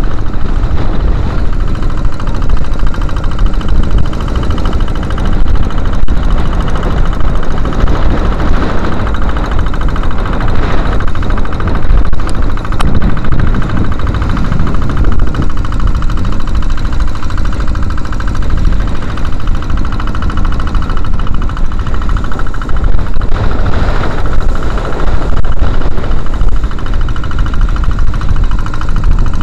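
Kubota diesel engine of a small outrigger fishing boat running steadily under way, with wind rumbling on the microphone and waves splashing in a rough sea.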